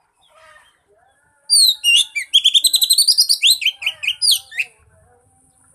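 Oriental magpie-robin song: a loud burst of fast, rising and falling whistled notes lasting about three seconds, starting about a second and a half in. It is a recorded song of the kind played as a lure to get a silent magpie-robin singing.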